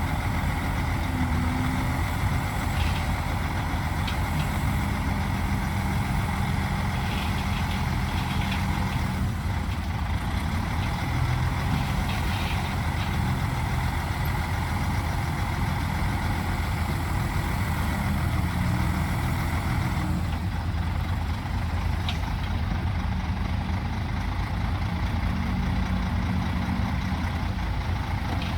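Heavy diesel earthmoving machinery running steadily, a constant low engine drone with a few faint light clanks.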